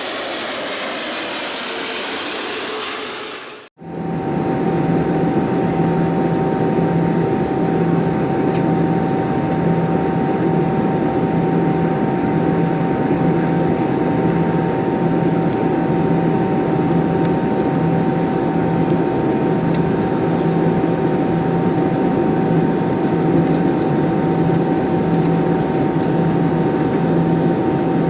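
Steady cabin noise of an Airbus A320-214 with its CFM56 jet engines running in flight, heard from a seat over the wing. Two steady whining tones and a low hum pulse about once a second. A different hissy sound in the first few seconds cuts off abruptly about four seconds in, before the cabin noise begins.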